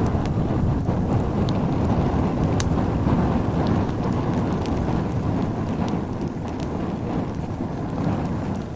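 Continuous low rumble with faint scattered crackles and ticks; it eases slightly about two-thirds of the way through.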